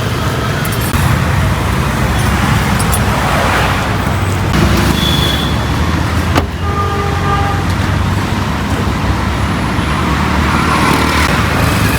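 Road traffic passing steadily. About six and a half seconds in there is a sharp click, followed at once by a short horn toot.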